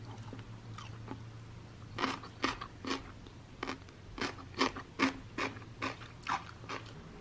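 Someone chewing a mouthful of celery kkakdugi (cubed celery kimchi): a run of crunchy bites about two a second, starting about two seconds in.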